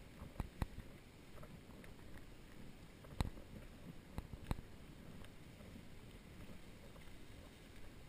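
Footsteps on a soft sand path, with a few sharp clicks about half a second in and again between three and four and a half seconds in, over a faint low rumble.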